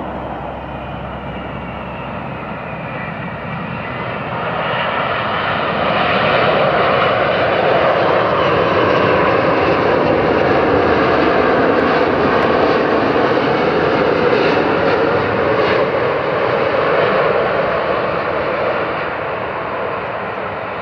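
Airbus A380-861's four Engine Alliance GP7200 turbofans at approach power as the airliner passes low on final approach. A falling whine in the first few seconds, then the jet roar swells about four seconds in, stays loud, and eases near the end.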